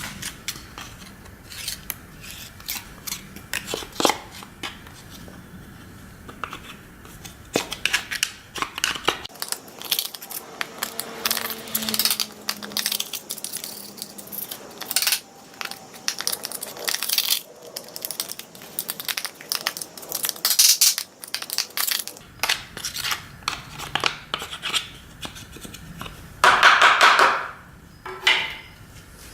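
Irregular clicks, clinks and rattles of a Makita chainsaw's metal parts, the chain, guide bar and cover, being handled during a tool-free chain change. Near the end comes a brief, dense, rapid rasping, like the chain being drawn over the bar or sprocket.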